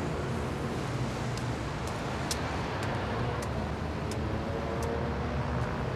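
Steady city street traffic noise. From about a second and a half in, a run of light, sharp clicks comes roughly every half second.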